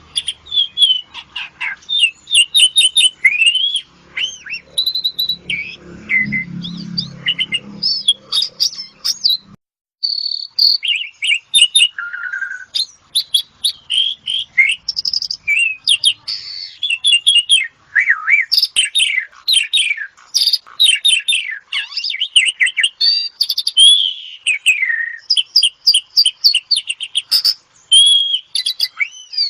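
Asian pied starling (jalak suren) singing a long, dense, varied song of fast chirps, whistles and rising and falling notes, with a short break about ten seconds in.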